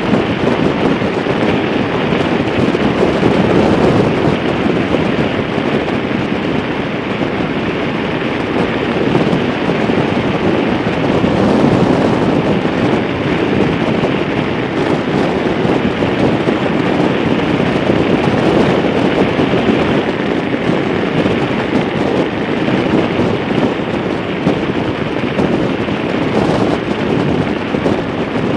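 Steady wind rush buffeting the microphone over the drone of a Harley-Davidson cruiser and its tyres at highway speed.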